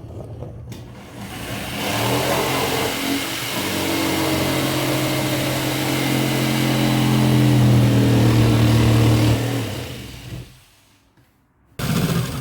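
Electric power saw running and cutting through wood for about nine seconds, then spinning down.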